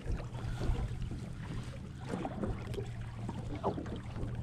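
Low steady hum of an idling Honda outboard motor, with faint splashes and handling clicks.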